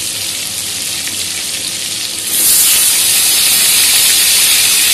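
Hot oil sizzling in a kadai as tomatoes and green chillies fry. A little over two seconds in, the sizzle jumps louder and sharper as raw potato wedges are dropped into the oil.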